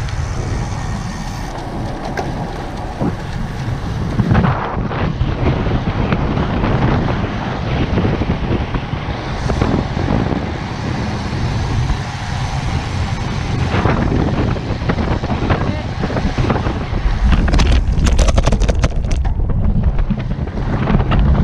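Wind noise on a bike-mounted camera's microphone as a road bike rolls along, with tyre and road noise underneath. Near the end comes a quick run of rattles and knocks as the bike rolls over broken, patched asphalt.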